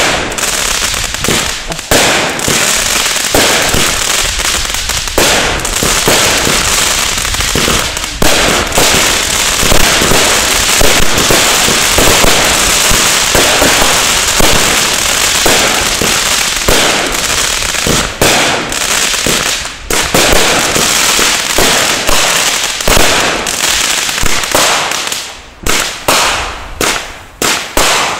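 Fireworks going off in a dense barrage, a rapid run of pops and bangs from shells bursting overhead. Near the end the barrage thins into separate loud bangs.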